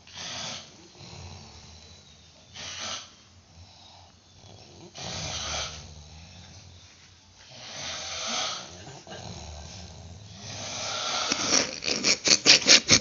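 A person snoring, one loud snore about every two and a half seconds, then near the end a fast fluttering rattle of about six or seven pulses a second.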